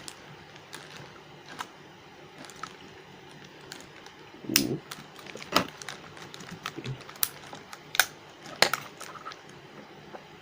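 Irregular sharp clicks and light knocks of an action camera's packaging being opened and handled, with several louder snaps in the second half.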